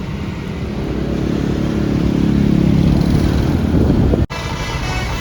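Tour bus engine pulling away, its note rising in pitch as it accelerates. About four seconds in the sound cuts out for an instant and a different sound with steady high tones follows.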